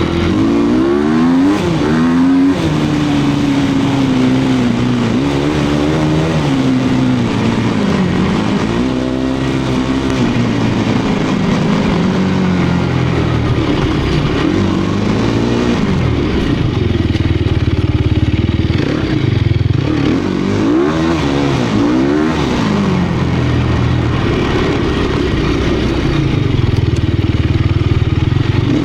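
Sherco 250 SEF Factory's single-cylinder four-stroke engine being ridden hard. The revs rise and fall every couple of seconds as the throttle opens and closes through the gears.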